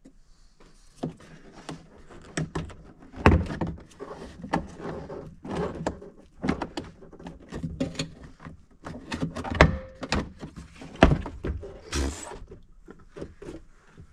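Plastic C-pillar trim panel of a 2015+ Honda Fit being popped off the body: a run of clicks and knocks as its clips release and the panel is worked free, with several louder thuds among them.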